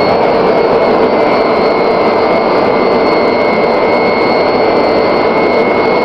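Small EcoBlast AS50 AT hot blast furnace running under blast while being tapped: a loud, steady roar of air and fire, with a faint high whine held throughout.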